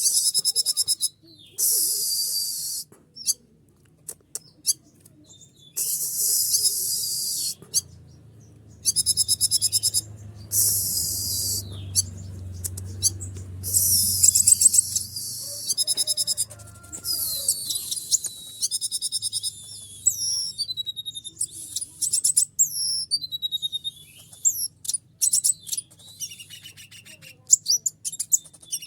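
Male konin (kolibri ninja) sunbird singing: bursts of very high, rapid twittering trills a second or two long, broken by short pauses, turning in the second half to shorter, varied chirps and quick glides. It is the excited song of a male in breeding condition.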